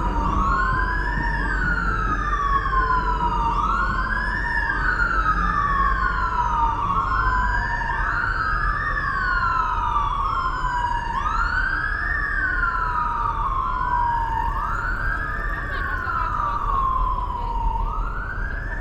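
Sirens of several police motorcycles wailing together, out of step with each other, each rising quickly and falling away more slowly over and over, the overlapping sweeps continuing throughout.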